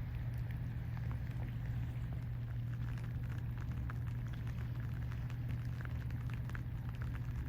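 River otter chewing a crab, the shell crunching in rapid, irregular little crackles, over a steady low hum.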